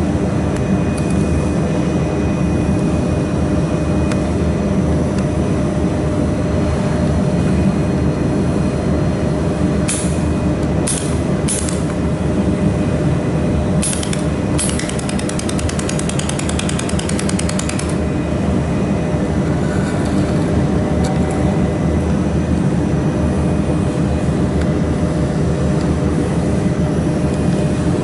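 200 W mould laser welding machine running with a steady hum. Around the middle come a few single sharp snaps, then a rapid, even run of snaps lasting about three seconds, typical of a pulsed laser firing on the workpiece.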